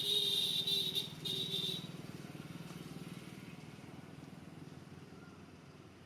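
Motorcycle sounds: a shrill electric tone, like a horn or buzzer, sounds in three short bursts in the first two seconds, over a low, steady, evenly pulsing mechanical sound that slowly fades.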